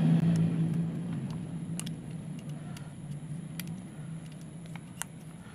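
A steady low hum, loudest at the start and fading away over the first two seconds, with a few light clicks as the torch's plastic lens ring is screwed onto the head by hand.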